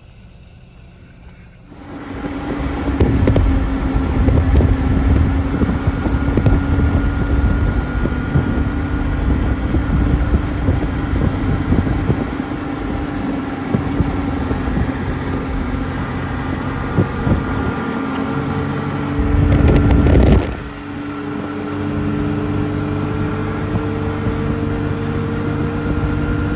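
Snowmobile engine running steadily as the sled travels the trail, with low buffeting noise beneath it; it comes in about two seconds in, swells briefly about twenty seconds in, then settles to a steady note that rises slowly in pitch.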